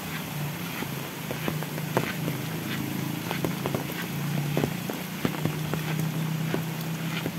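Steady rain falling on foliage and a paved road, with many scattered close drops ticking. A low steady drone runs underneath, a little louder about halfway through.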